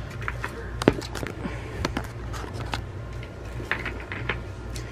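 Scattered clicks and knocks of hard plastic and metal chair parts being handled as a gas lift cylinder is fitted into an office chair's five-star base. The sharpest knock comes about a second in, with a quick run of clicks near the end, over a steady low hum.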